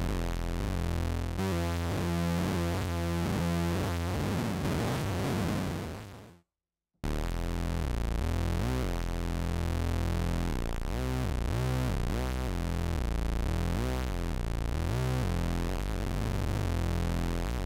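Synthesizer notes and chords played from a MIDI keyboard controller, their pitch bent up and down and modulated with the controller's pitch-bend and mod sticks. The sound fades out about six seconds in, stops for under a second, then starts again.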